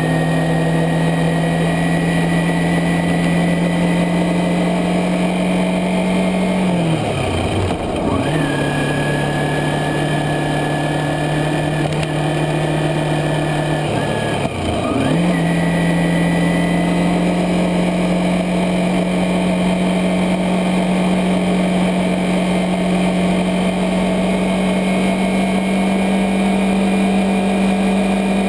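Kawasaki Ninja 250R parallel-twin engine running at steady road speed under a haze of wind and road noise. Twice, about seven and fourteen seconds in, the revs drop sharply and then climb back up.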